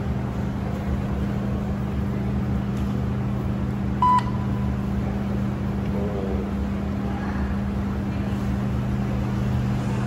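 A single short electronic beep about four seconds in, from the soap vending machine's card payment terminal, over a steady low hum of running laundromat machines.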